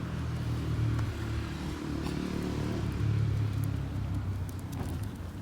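Car engine running, a low steady hum that drops a little in level near the end.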